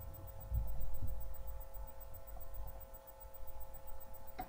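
Steady electrical hum of a webcam microphone, with low, muffled thuds and rumbles near it, loudest from about half a second to a second and a half in.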